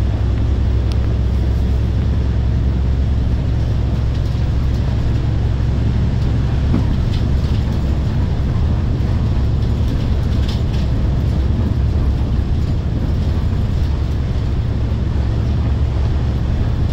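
Daewoo BS106 diesel city bus heard from inside the cabin while driving: a steady low engine rumble mixed with road noise, with a few faint rattles now and then.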